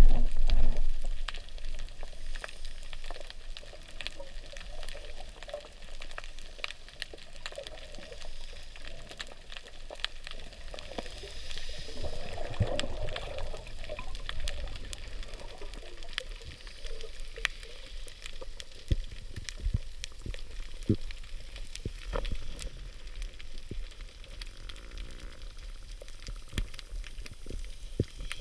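Underwater ambience: a low wash of moving water with a constant scatter of sharp clicks and crackles, and a louder rush of water in the first second.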